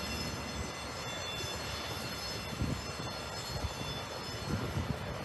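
Wind gusting on the microphone in low irregular thumps, over a steady distant rumble with faint high whining tones.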